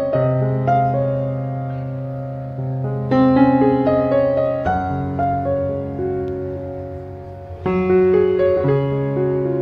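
Background piano music: slow chords struck every few seconds, each left to ring and fade.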